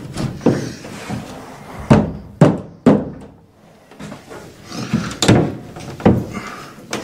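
Plastic tub surround wall panel being pushed and flexed into place by hand against the wall, giving a series of irregular knocks and thumps, several of them loud.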